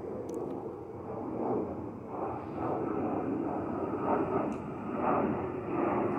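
Twin-engine jet airliner passing overhead at altitude: a steady, distant rushing rumble of jet engines whose loudness wavers slightly, with a couple of faint clicks.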